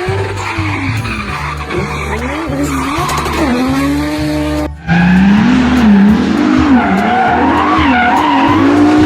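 Race-car engine sound revving up and down repeatedly, over a low steady hum. It cuts out abruptly about five seconds in and comes back louder.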